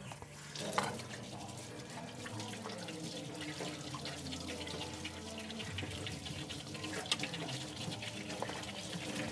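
Tap running into a stainless steel sink while hands are rubbed and rinsed under the stream, with small splashes off the metal basin.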